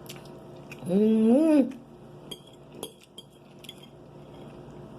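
A short hummed vocal sound, like an appreciative "mmm", about a second in, then several light clinks of cutlery against a plate as she eats.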